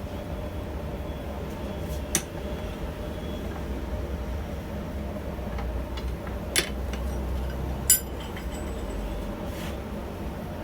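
Three sharp metallic clinks, about two, six and a half and eight seconds in, over a steady low hum.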